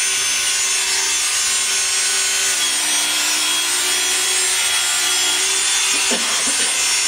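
Ski Man Bravo electric ski edge sharpener running steadily as it grinds the side edge of an alpine ski: an even, continuous grinding hiss with a steady whine in it.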